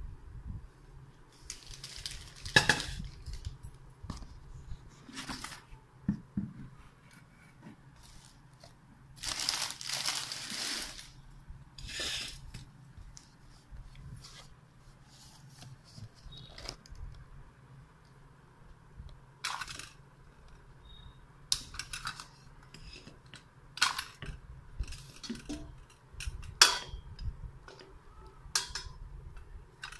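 Stainless steel Prestige Clip-on pressure cooker being handled: scattered metal clinks and knocks from the pot and its lid, with the crinkle of plastic wrapping at times, loudest about 9 to 11 seconds in.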